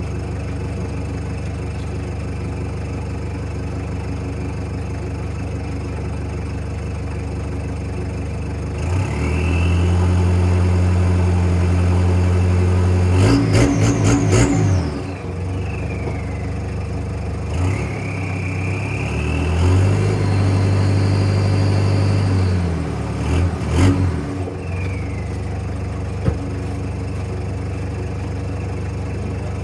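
Toyota 4Runner exhaust with a stainless system, heard at the tailpipe. The engine idles steadily, is revved up and held twice, about nine and about seventeen seconds in, with a few quick throttle blips at the end of each rev, and each time it drops back to idle.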